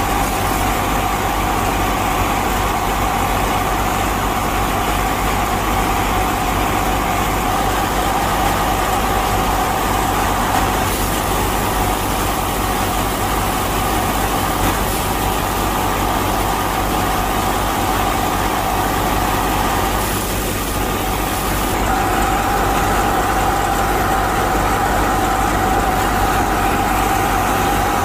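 A small motor running steadily with an even drone and a fast, fine pulse underneath. About twenty seconds in it dips briefly, then comes back a little louder and higher.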